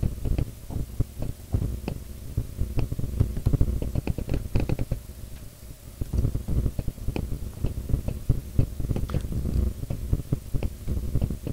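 Typing on a computer keyboard with mouse clicks: quick irregular clicks and dull thumps that ease off briefly about five seconds in, then pick up again.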